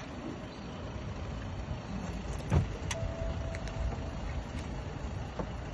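Steady low rumble of a car, with a single thump about two and a half seconds in and a short, faint steady beep just after three seconds.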